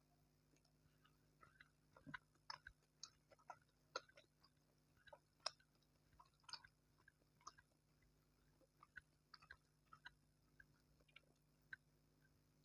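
A person chewing food close to the microphone: irregular soft, wet mouth clicks and smacks, several a second in bunches.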